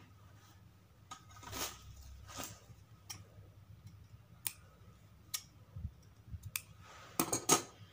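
Large tailor's shears snipping cloth: a few sharp, separate snips, the loudest close together about a second before the end, after a couple of soft rustles of fabric being handled.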